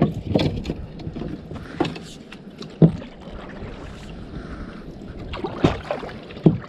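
Kayak paddling: a double-bladed paddle dipping and pulling through the water, with several sharp knocks of paddle and gear against the plastic hull.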